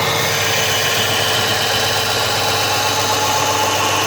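Belt grinder running steadily while a knife blade's bevel is ground against the belt in a bevel jig.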